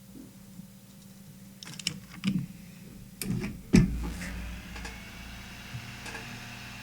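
A few sharp clicks and knocks of small tools and parts being handled on an electronics workbench, the loudest just under four seconds in, followed by a steady faint hiss.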